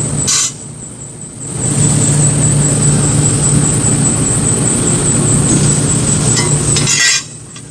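CNC press brake cycling through a bend on a stainless steel part: a sharp clack just after the start, then a steady machine hum with a high whine from about two seconds in, ending near the end in a short clatter as the sound drops away.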